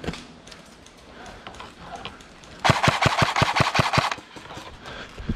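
Airsoft gun firing one full-auto burst of about ten rapid shots, lasting under a second and a half, about three seconds in.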